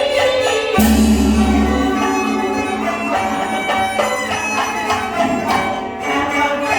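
Live Teochew opera ensemble music, with bowed Chinese fiddles carrying the melody. A sharp percussion hit comes about a second in.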